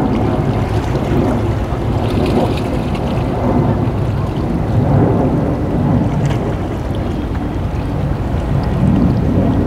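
Tugboat diesel engines giving a steady low rumble while pushing against a container ship's hull, with churning water and wind on the microphone.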